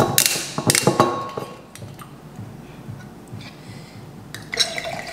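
Drinkware and bottles being handled on a kitchen counter: a few sharp clinks and knocks in the first second, then quieter, with another clatter near the end.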